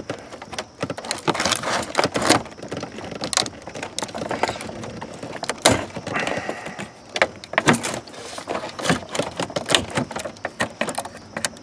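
A screwdriver and hands working at plastic clips and connectors behind a car's instrument cluster: irregular clicks, taps and scrapes of metal on plastic.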